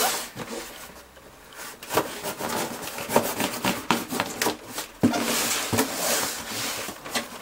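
A large cardboard box being tipped, turned and slid across a wood floor: rubbing and scraping of cardboard on the boards, with several knocks as it is set down and moved.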